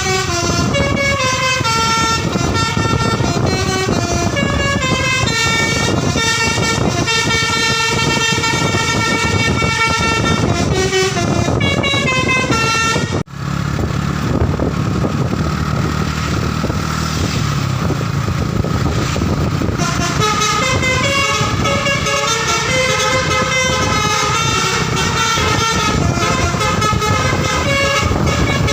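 A basuri telolet bus horn, a multi-note air horn, playing a tune in stepped notes. About 13 s in the sound drops out for an instant. For the next several seconds there is a noisier stretch with a low hum and only faint notes, then the horn tune resumes.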